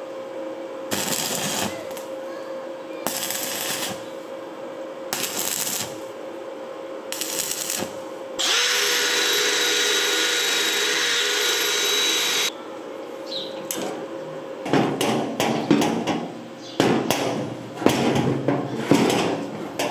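Stick-welding arc crackling in four short bursts as a steel rod is tack-welded, over a steady hum. About eight seconds in, a Milwaukee M18 cordless drill spins a small cutting disc against the rod for about four seconds, a steady whine. Irregular metal clicks and knocks follow as the tool is handled.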